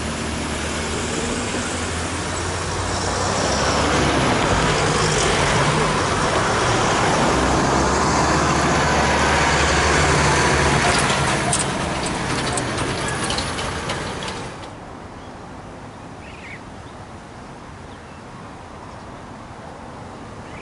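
Road traffic crossing the level crossing. A car and then a tipper truck drive past close by, with engine hum and tyre noise building to a peak as the truck goes by. The sound drops suddenly to a much quieter outdoor background about two thirds of the way through.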